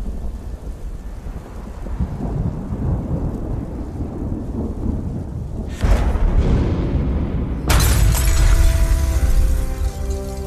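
Cinematic sound effects under a music score: a deep thunder rumble builds, then a sudden thunderclap about six seconds in. Near eight seconds comes a louder crash of shattering glass with a long noisy tail, and held musical notes come in near the end.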